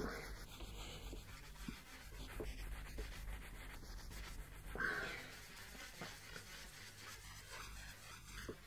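A cloth wetted with WD-40 rubbed back and forth over an engraved metal plate, wiping off the blacking. The rubbing is faint and uneven, with a louder stroke about five seconds in.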